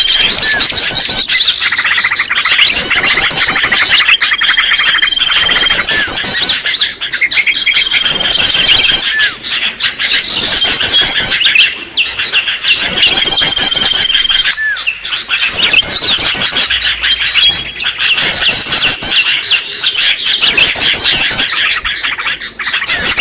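Cucak ijo (green leafbird) calling noisily in a bird-lure recording. Loud, rapid chattering trills run continuously, broken every four seconds or so by a held, even whistle.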